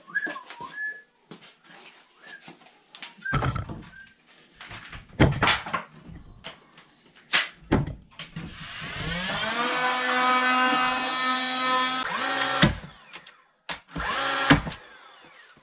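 Power drill motor spinning up with a rising whine, then running steadily for about four seconds before stopping, with a shorter burst near the end. Before it come scattered knocks and clatter of wooden boards being handled.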